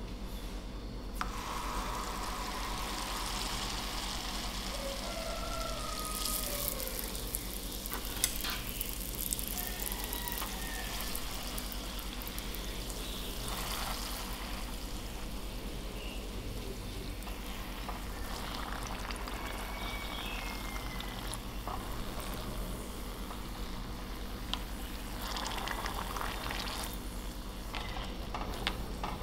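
Battered corn dog deep-frying in a saucepan of hot oil: a steady sizzle and bubbling that starts about a second in as it goes into the oil. A few light clicks sound over it.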